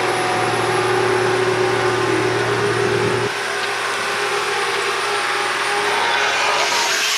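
Engine-like machine noise running steadily, a loud rushing hum with a low tone that drops out about three seconds in.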